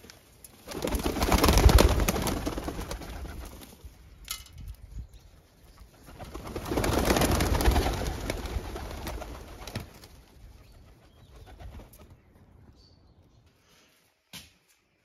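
White doves cooing, with two long swells of rushing noise that each build up and fade over a few seconds. A single sharp tick comes near the end.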